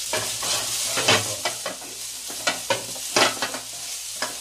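Wooden spatula scraping and knocking irregularly against a nonstick frying pan as fusilli pasta is stirred through pesto sauce, over a steady sizzle from the pan.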